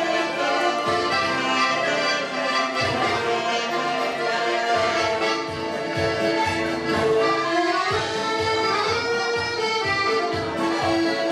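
Accordion-led dance music with a steady beat.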